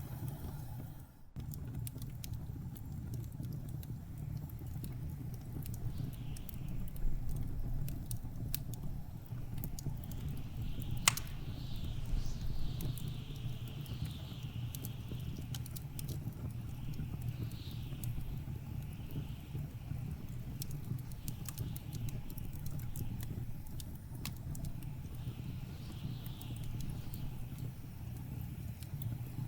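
Wood fire crackling with scattered sharp pops, one much louder pop about 11 seconds in, over the steady low rumble of blizzard wind. A wavering high whistle of wind rises and falls in the second half.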